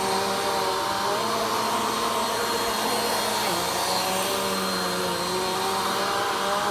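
Vacuum cleaner running steadily during slow vacuuming, its motor hum dipping slightly in pitch about three and a half seconds in.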